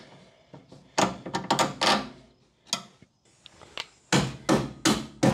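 Hand tools clicking and knocking on metal while a car's front shock absorber mount is tightened: an irregular run of short clicks and clanks, with a cluster of heavier knocks about four seconds in.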